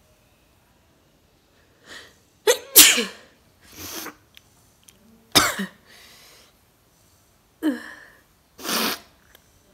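A woman sneezing three times a few seconds apart, with sniffs and breaths between. The sneezes are forced, brought on by tickling the inside of her nose with a stick.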